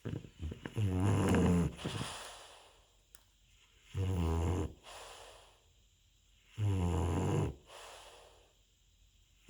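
Dog snoring in its sleep: three snores about every two and a half seconds, each followed by a fainter breath, with a few short clicks at the start.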